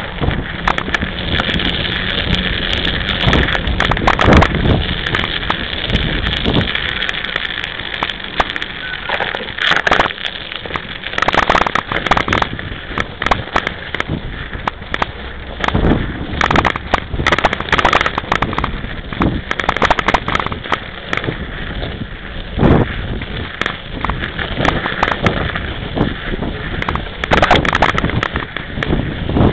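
Mountain bike riding over snow: the knobby tyre crunching and crackling through the snow under a steady rushing noise, with frequent sharp knocks and rattles as the bike jolts.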